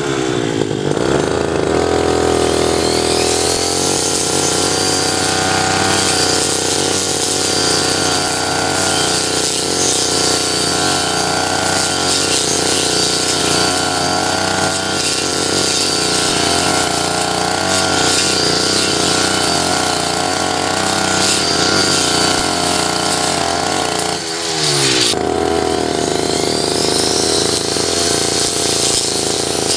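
Two-stroke backpack brush cutter running at low throttle while its spinning metal blade cuts grass. The engine speed rises over the first couple of seconds and then wavers. About 24 seconds in, the engine drops briefly and picks up again.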